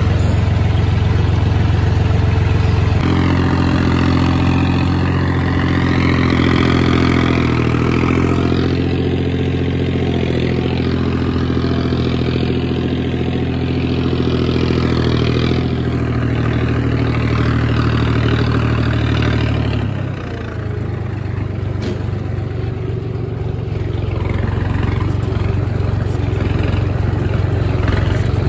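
John Deere 5039 tractor's three-cylinder diesel engine running as the tractor drives over soft field soil. About three seconds in its note steps up to higher revs and holds there, then drops back near the twenty-second mark.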